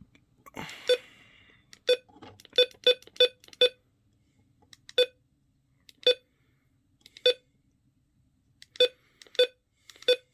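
About a dozen short, identical electronic beeps at irregular intervals from a weather alert radio's buttons being pressed, as its alert setting is switched off silent.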